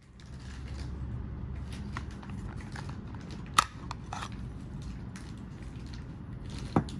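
A fixed-blade knife and its moulded plastic sheath handled close to the microphone: low rustling throughout. There is one sharp click about three and a half seconds in as the blade works in the sheath, and another sharp click near the end.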